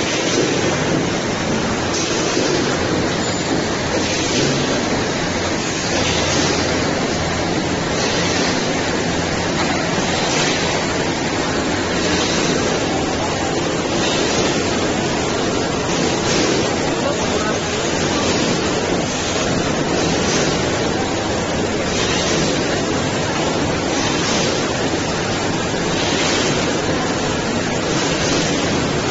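Steady rushing noise of a popping boba production machine running, with a brief high hiss repeating about every two seconds.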